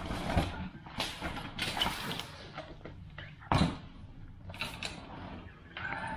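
Rustling and handling of a nylon golf-bag travel cover as a golf bag is pulled out of it, with one heavy thump about three and a half seconds in as the bag is stood on the wooden floor. Further rustling of the bag's fabric and fittings follows.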